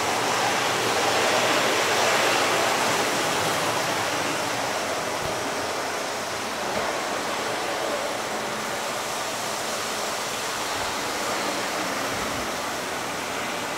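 Lionel O gauge model train running on its track: a steady rushing rumble of wheels and motor, a little louder in the first few seconds.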